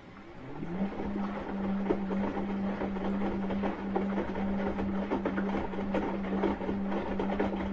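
Asko washing machine's motor starting up, its hum rising in pitch over the first second and then holding steady, with a busy rattling and clatter throughout.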